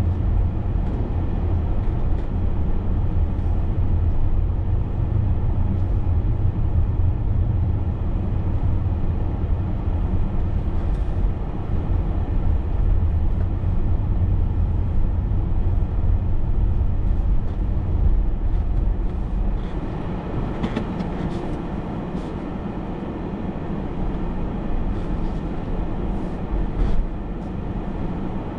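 Steady low engine and road rumble heard from inside a moving vehicle while driving; it eases off about two-thirds of the way through.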